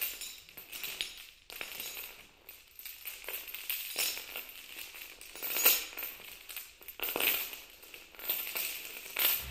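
Metal chains rattling and clinking in irregular bursts, loudest a little past halfway, with no music yet.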